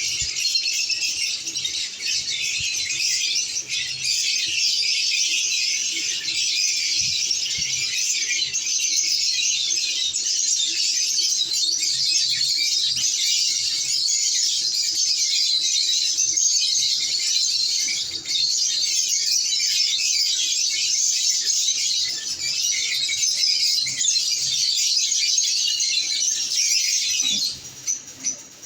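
Many lovebirds chattering together in a continuous, high-pitched chorus of chirps and squawks, which briefly drops out near the end.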